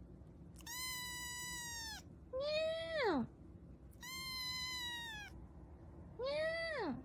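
Cat meowing four times in a back-and-forth pattern. A long, level, higher-pitched meow alternates with a shorter meow that rises briefly and then drops steeply in pitch.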